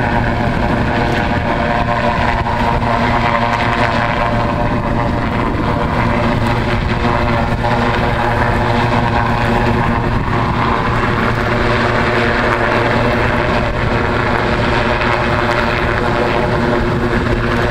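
Search-and-rescue helicopter hovering low over the sea, its engines and rotor running at a steady, loud drone that stays even throughout.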